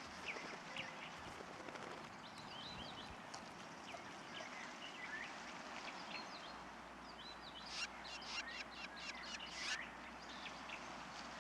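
Faint background hiss with scattered short, high bird chirps, and a quick run of dry ticks about eight seconds in.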